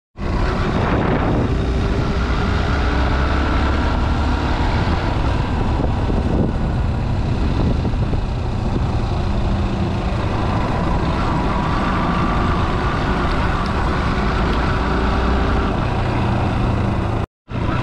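Motor vehicle running on the road: a steady, loud engine and road rumble, heavy in the low end. It breaks off for a moment near the end and resumes unchanged.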